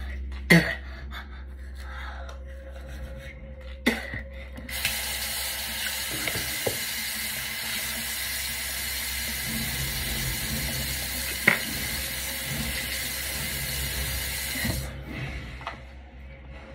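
Bathroom sink faucet turned on about five seconds in, running steadily for about ten seconds, then shut off. Two sharp knocks come before it and one more while it runs.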